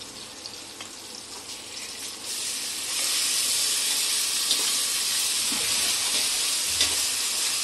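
Onion-tomato masala frying in oil in a stainless steel pot. The sizzle swells and turns loud about two seconds in, as green chilli, coriander and curry leaf paste is stirred in with a metal ladle. A few light clicks of the ladle against the pot are heard.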